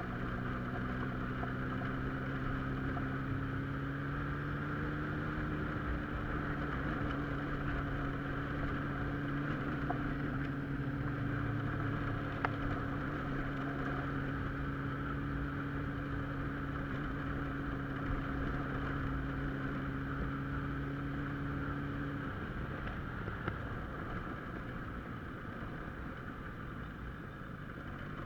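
A car being driven, with a steady engine hum over road noise. The engine note rises slightly a few seconds in and drops away about three-quarters of the way through, leaving the road noise.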